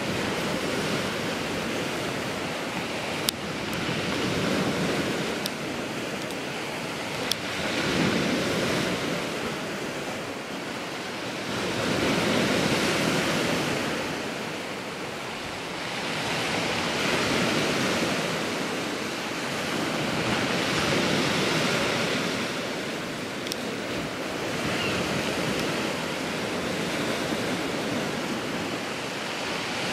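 Sea surf surging in and washing back, swelling and falling about every four seconds, with a few faint clicks.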